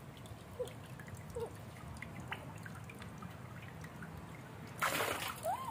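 Water dripping and trickling off a wet puppy into a metal basin of water, with a brief louder splash about five seconds in. A short rising puppy whimper comes right at the end.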